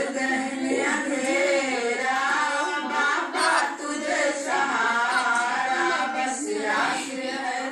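Several voices singing or chanting together without a break, their lines overlapping.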